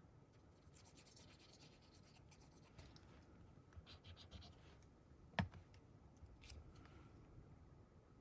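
Faint scratching and rustling of paper strips being handled and laid down, with one sharp tap about five seconds in.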